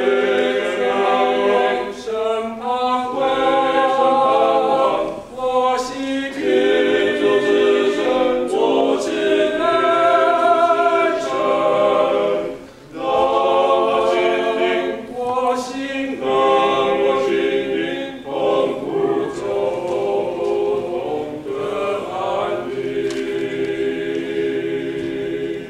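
Five men singing unaccompanied in close harmony, phrase after phrase with short breaths between, closing on a long held chord near the end.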